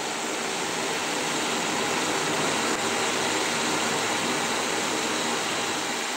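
Anar (flowerpot) fountain firework burning on the ground, giving a steady hiss as it sprays its column of sparks.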